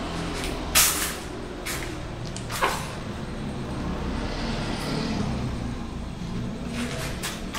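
Steady low background rumble with several short, sharp hissing bursts: one about a second in, two more within the next two seconds, and a pair near the end.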